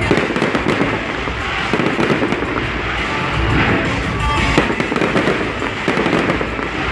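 Fireworks display going off continuously: repeated bangs and a dense crackle from bursting shells and glittering white crackle stars.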